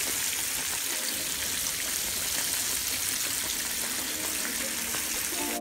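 Breaded fish fillets deep-frying in a pan of hot oil: a steady sizzle of bubbling grease.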